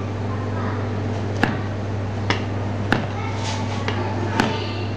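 Long serrated knife cutting a chocolate-glazed pastry strip on a stainless steel table, the blade knocking sharply on the steel four times at uneven intervals, over a steady low hum.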